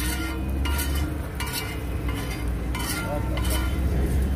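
A metal spatula scraping across a large flat iron tawa in several short strokes, gathering up the cooked egg gravy, with light sizzling from the hot griddle. A steady low rumble runs underneath.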